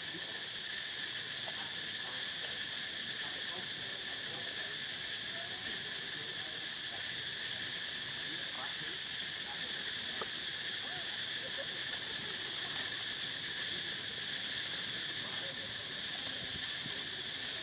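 Steady insect chorus: a continuous high-pitched drone that neither rises nor falls, with faint scattered ticks over it.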